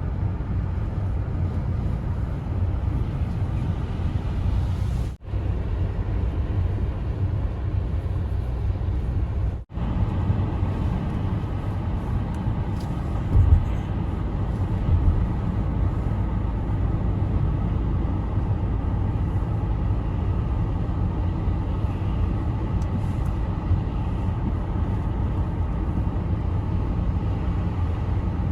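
Steady low road noise of a car driving on a snowy highway: tyres and engine rumbling. The sound cuts out briefly twice, about five and ten seconds in.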